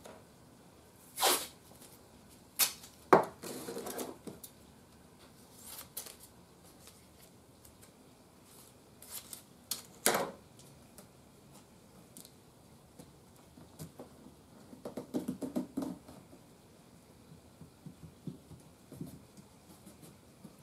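Scattered sharp clicks and taps with short bouts of rustling as small pieces of wood and tools are handled on a workbench. The loudest knock comes about three seconds in, and there is a longer rustle near the middle-end.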